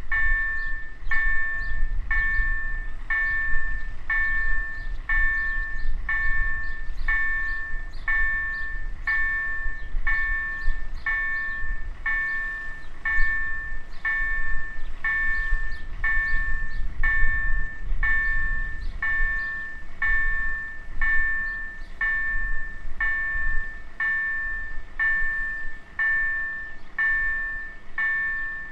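Level-crossing warning bell ringing steadily at about one stroke a second while the barriers are down and the red lights flash, with a low rumble underneath.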